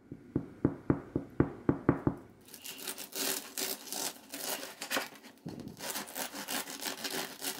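A quick run of about eight sharp knocks, then a serrated bread knife sawing back and forth through the hard crust of a freshly baked yeast loaf, with rapid rasping strokes.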